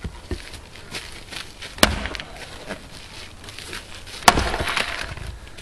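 Two hard strikes of a Leveraxe splitting axe into a block of dry elm, about two and a half seconds apart, the second the louder. After the second strike the wood crackles as a big piece splits away from the side of the block.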